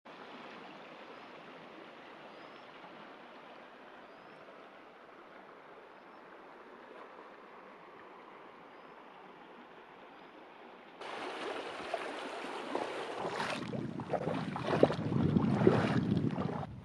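Shallow river water running over stones, a steady rushing hiss. About eleven seconds in it turns abruptly louder and fuller, with uneven splashing surges.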